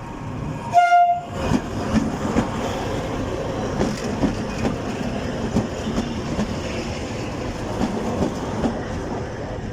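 A passing train, the EP2K electric locomotive and its cars, gives a short horn toot about a second in. Its wheels then clatter in a steady clickety-clack over the rail joints as the cars roll by.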